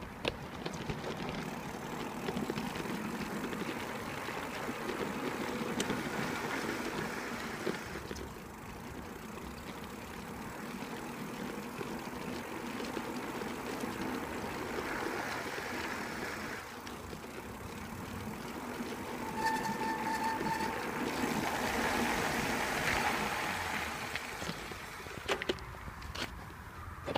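Bicycle rolling with a Shimano XT hydraulic disc brake on a 180 mm Ice-Tec rotor. About two-thirds of the way in there is a short, high squeal lasting about a second, the squeal this brake makes after braking.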